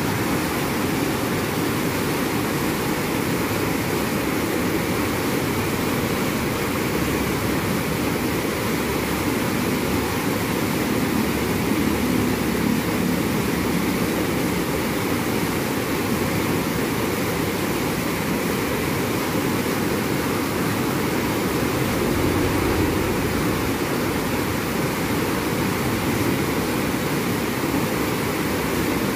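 Fast, shallow river water rushing steadily over white-water riffles, a constant even rushing noise.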